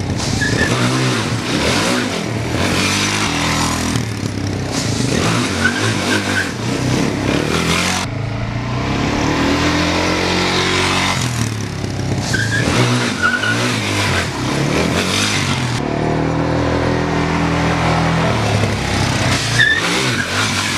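Suzuki supermoto motorcycle drifting in tight circles on a concrete driveway: the engine revs rise and fall again and again as the rear tyre spins and slides, over a steady hiss of tyre scrub.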